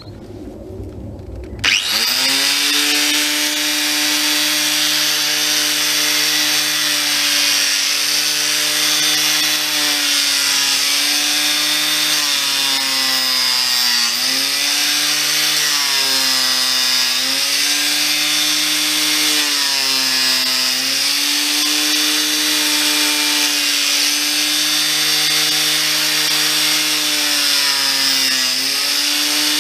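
Electric angle grinder switching on about two seconds in and cutting into solid oak: a steady motor whine over a bright hiss. Its pitch sags several times as it bites into the wood under load.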